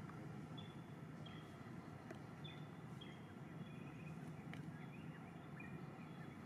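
Faint outdoor ambience: a low steady hum under short high chirps from a bird, repeating about once or twice a second.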